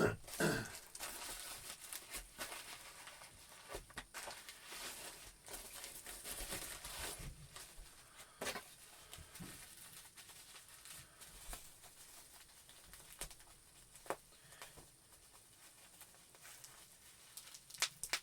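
Toy packaging being handled: plastic and cardboard crinkling and rustling, with scattered sharp clicks and taps.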